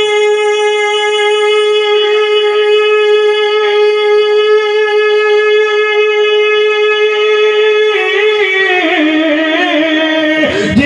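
A man's voice holding one long sung note of a naat, steady for about eight seconds, then sliding down in wavering turns near the end.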